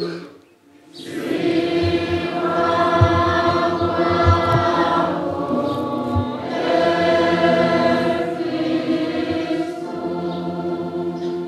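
Church choir singing together, coming in about a second in, with a few low thuds underneath: the sung congregational response after the Gospel reading at Mass.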